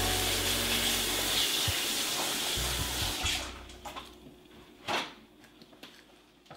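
Water running from a kitchen tap as a steady hiss, shut off about three seconds in. A single knock follows near five seconds.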